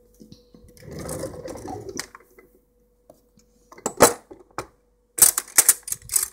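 Handling noises from a slice of raw carrot: a soft rustle, then sharp cracks and clicks, first singly and then several in quick succession near the end, as the carrot is broken.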